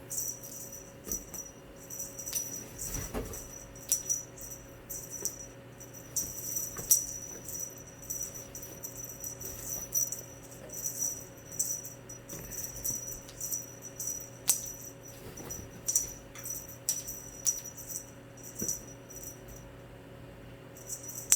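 A cat wand toy being jiggled and shaken, giving a rapid, irregular jingling rattle in short bursts that keeps going with only brief pauses.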